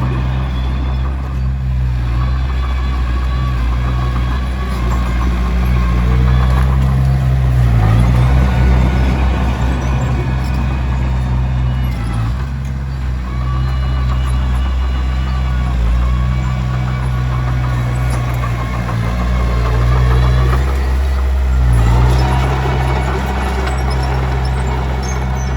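Komatsu D21P bulldozer's diesel engine running under load, its steady drone dipping and swelling several times as it works.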